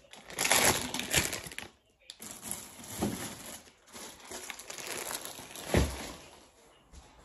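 Packaging crinkling and rustling while being handled in a refrigerator, with one dull thump a little before six seconds in.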